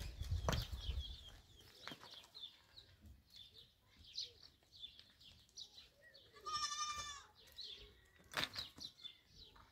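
A goat bleating once with a quavering call about seven seconds in. Faint chirps and a few light knocks are heard around it.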